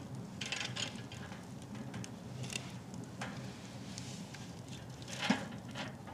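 Wood fire crackling with scattered pops inside a Winnerwell Nomad stainless steel stove with its door open. A split log is loaded onto the stainless mesh grate, with one sharp knock of wood on metal about five seconds in.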